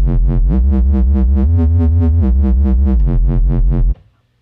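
Dubstep wobble bass from Ableton Live's Simpler sampler: a hybrid square-sawtooth wave through a band-pass filter that an eighth-note LFO sweeps, so the note pulses in a fast even wobble. Played one voice with glide on, the held note slides up in pitch twice and then back down twice, cuts off just before the end, and a new note starts right at the end.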